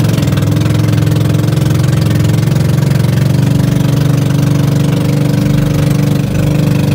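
Small boat's engine running steadily and loudly, with an even low-pitched drone.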